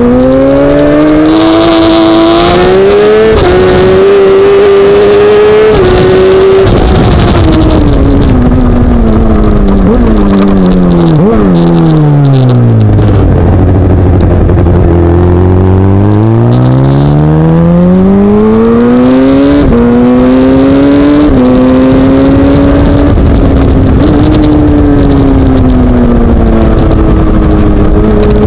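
Suzuki GSX-R1000 K7's inline-four engine running loud at racing speed from onboard the bike, with steady wind rush on the microphone. The revs climb and hold at first, fall over several seconds with brief upward flicks to a low steady pitch about halfway through, climb again with small steps, then drop once more near the end.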